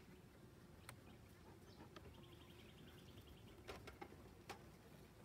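Near silence: a faint hum of honeybees on the open hive frames, with a few light knocks. About two seconds in, a bird gives a brief rapid trill.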